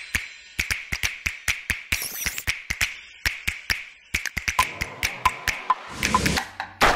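Percussive background music: a quick, even run of crisp tapping clicks, with a short repeated tone figure joining about two-thirds of the way in.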